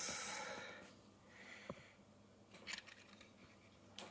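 A high hiss fades out in the first second. Then come a few faint, light clicks of a plastic N-gauge model train car being handled and picked up.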